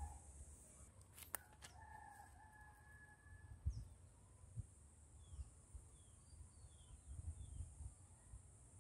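Faint, distant rooster crowing once, about two seconds in, followed by a few small bird chirps. Under it run a steady high hiss and a low rumble of wind on the microphone.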